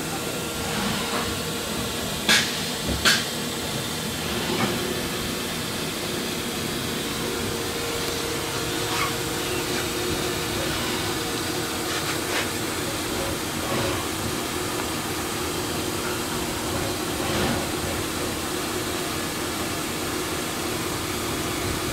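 Large 3D printer running a print, its NEMA 23 stepper motors driving 50 mm-lead Igus lead screws with a steady hum whose pitch drops partway through, over a hiss from the cooling fans. Two sharp clicks stand out a couple of seconds in, with fainter ones scattered after.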